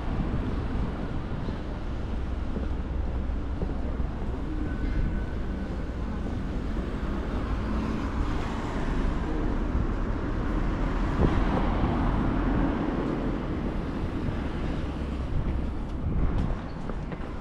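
Street ambience of road traffic: a steady low rumble of passing vehicles, fuller in the middle of the stretch.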